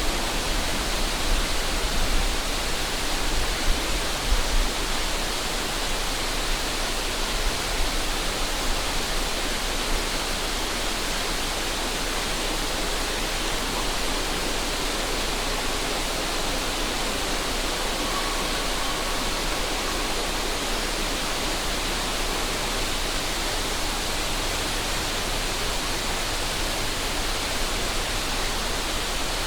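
A river rushing steadily: an even wash of water noise. Wind buffets the microphone with low rumbling gusts in the first few seconds.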